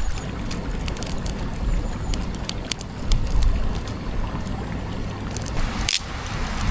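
Forest stream flowing: a steady rush of water with a deep rumble, with a few light clicks on top. The sound drops out briefly near the end.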